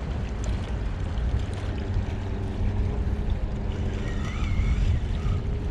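Wind rumbling on the microphone over water at the shoreline, with a faint steady hum.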